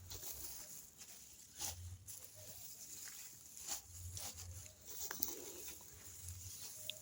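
Faint rustling and a few soft, scattered crunches of footsteps moving through a garden bed, over a low rumble.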